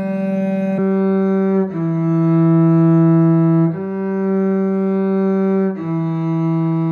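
Cello playing a slow march in C major, long bowed notes each held about two seconds before moving to the next pitch.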